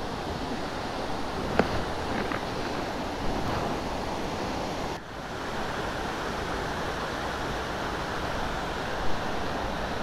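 Steady rush of water from a small waterfall and the muddy stream it sends flowing across the road.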